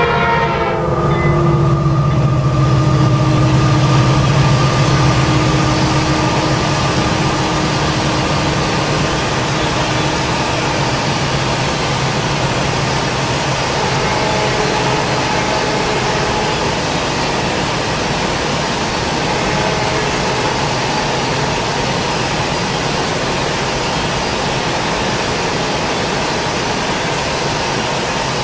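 Freight train passing: the diesel locomotive's horn slides down in pitch and stops about a second in, its engine drone fades over the next few seconds, and then a long steady rumble of empty rock cars rolling past on the rails.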